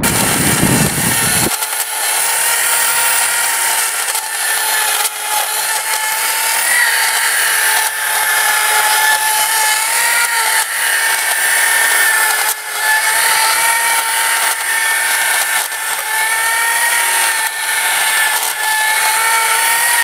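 Angle grinder spinning a Tercoo rotating bristle disc against a boat hull to strip gelcoat: a steady high-pitched whine whose loudness dips and recovers as the disc bites. Low wind noise on the microphone comes before it for the first second and a half.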